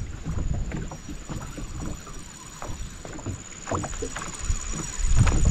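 Small aluminium boat rocking on the river: water slapping against the hull, with irregular light knocks and low buffeting, a little louder near the end.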